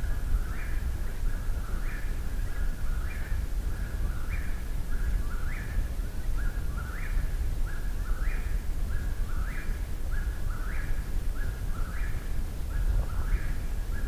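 Eastern whip-poor-will singing its 'whip-poor-will' song over and over at a steady pace, about one phrase every second and a quarter, each phrase ending on a rising note. A low background rumble runs underneath.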